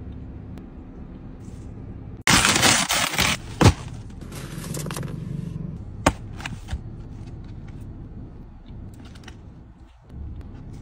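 Paper and cardboard food packaging being handled: a loud crinkling rustle lasting about a second, a sharp snap, and later a single click as the box is opened, over a steady low rumble.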